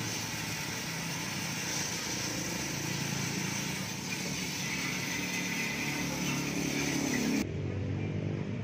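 Pressure-washer jet hissing as it sprays a van's tyre and wheel arch, with a steady low machine hum underneath. The spray hiss stops suddenly near the end, leaving the low hum.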